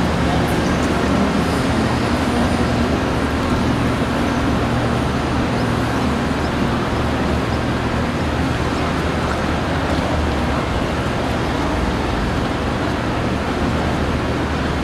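Steady road traffic noise: a continuous wash of passing vehicles and engine rumble in a busy street.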